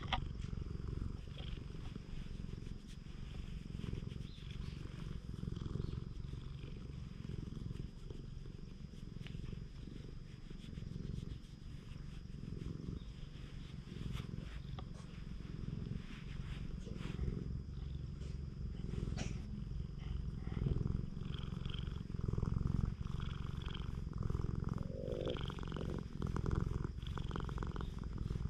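Orange-and-white cat purring steadily while being stroked under the chin, a continuous low pulsing rumble.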